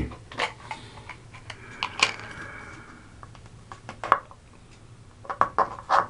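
Small plastic clicks and taps from handling an orange plastic pill bottle and its white snap cap on a counter, with a louder tap about two seconds in and a quick run of clicks near the end.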